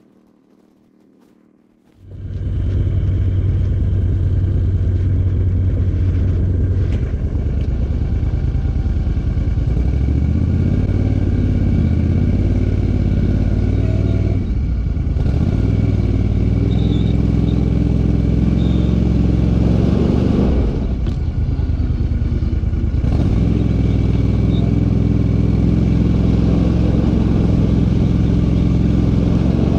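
Argo eight-wheel amphibious ATV's engine running under load as it drives. It comes in abruptly after a couple of seconds of quiet, and its speed dips and picks back up a few times.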